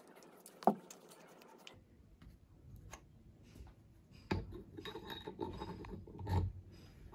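Microscope parts being handled: a single sharp knock about half a second in, then rubbing and clinking as the microscope body is fitted into its holder, with a heavier thud near the end.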